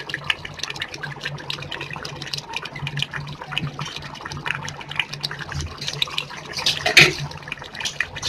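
Thick fish curry boiling hard in a stainless steel pot, bubbles popping and spluttering in a constant irregular crackle, with one louder pop about seven seconds in, over a steady low hum.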